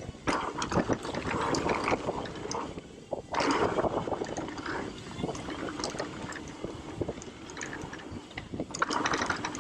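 Mountain bike ridden fast down a dirt downhill trail: tyres rolling over loose dirt with frequent clicks and rattles from the bike.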